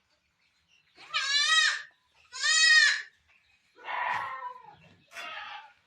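Barbari goats bleating: four bleats, the first two loud and quavering, the last two rougher and quieter.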